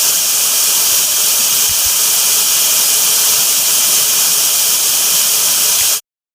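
Steady loud hiss of gas escaping from a leak at the cap tube at the bottom of an HVAC system's liquid line, cutting off suddenly near the end.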